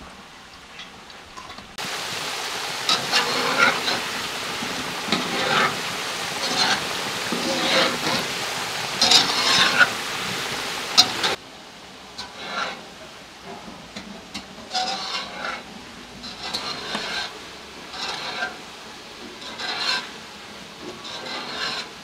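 Cooking sounds. For about ten seconds a steady hiss with scraping strokes runs, starting and stopping abruptly. Then, quieter, a spoon stirs in a metal pot, scraping about once a second.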